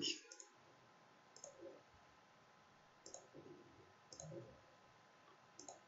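Faint computer mouse clicks, a handful of short, separate clicks spread across a few seconds, over near silence.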